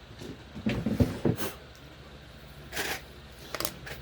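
Knocks and clicks of a small diecast toy car being handled, loudest about a second in. Near three seconds in comes a short brushing swish as loose drilled plastic is brushed off the chassis.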